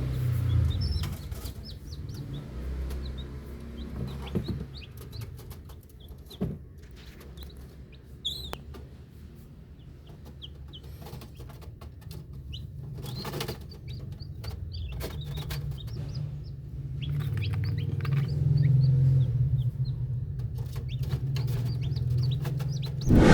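Young chicks peeping, many short high cheeps throughout, over a low rumble with a few knocks.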